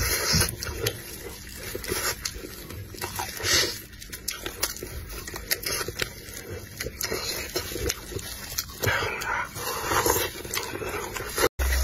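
Close-miked chewing and gnawing of sauced chicken pieces off the bone, an irregular run of wet clicks and smacks. It breaks off in a brief dropout near the end.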